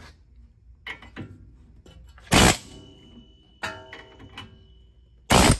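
A pneumatic air hammer fired in two short bursts, about three seconds apart, against the remains of a seized old bearing race on a steering spindle. Between the bursts the steel tools clink and a metal clank rings on briefly.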